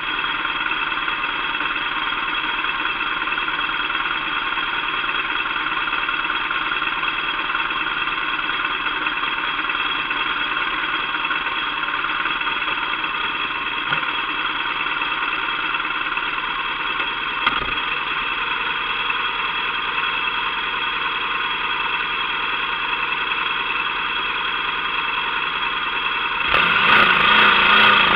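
Motorcycle engine idling steadily. About a second and a half before the end it gets suddenly louder and hissier as the bike moves off.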